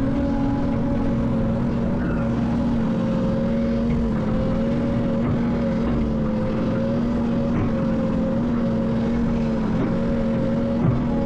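Heavy construction machine's diesel engine running steadily at a constant speed, a drone that holds one pitch, with a short knock near the end.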